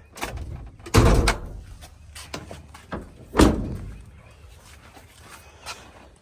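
Two loud metal clunks, about a second in and again about three and a half seconds in, with lighter clicks and rattles between them, from a 1991 Dodge D150 pickup's body panels and latches being worked.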